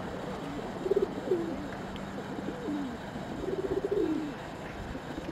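Domestic pigeons cooing: several low, gliding coos, about one second in, again at two and a half seconds, and a longer one around four seconds.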